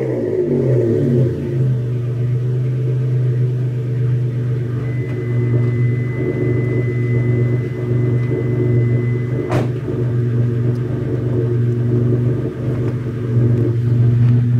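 1995 Mitsubishi 3000GT's 3.0-litre V6 on a straight-pipe exhaust, just cold-started: its revs drop in the first second or so, then it idles steadily with a deep, even note. A single knock about ten seconds in.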